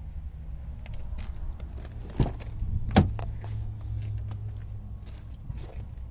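Handling of the 2012 Lincoln MKT's left rear door: scattered clicks and two sharp knocks about two and three seconds in, the second the loudest, over a steady low rumble.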